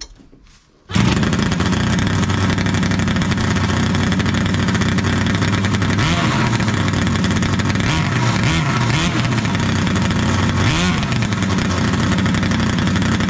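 Two-stroke twin engine of a homemade jet surfboard running with no exhaust fitted. It comes in suddenly about a second in and runs steadily, with the revs rising and falling a few times in the second half.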